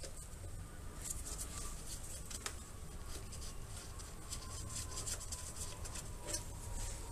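Faint, scattered clicks and light scraping of small metal parts being worked by hand, with a few sharper ticks, as the rear drum brake's cable is released.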